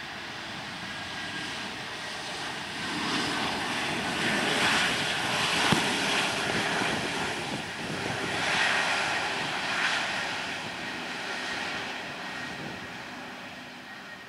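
Pratt & Whitney PW1100G geared turbofans of an Airbus A321neo at takeoff thrust during the takeoff roll: a rushing jet roar with a faint whine that grows louder as the airliner speeds past, peaks in the middle, and fades as it moves away.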